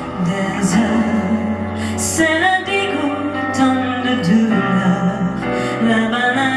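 Live performance of a slow pop ballad: a lead voice sings held, gliding lines over a band with sustained bass notes and a few cymbal splashes.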